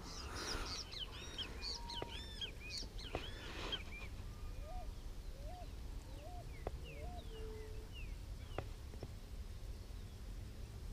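Birds calling: a quick run of high, arching chirps in the first few seconds, then a series of short rising lower notes, over faint outdoor background noise.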